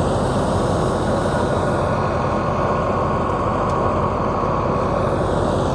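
Tractor-driven wheat thresher running steadily: the tractor engine working under load with the thresher drum's dense, unbroken rumble as it threshes wheat and blows out the straw.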